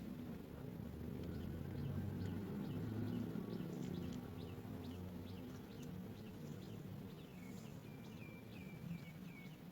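Small birds chirping: thin, high, short chirps that drop in pitch, coming about one or two a second, then a quick run of lower notes near the end. A steady low rumble sits underneath.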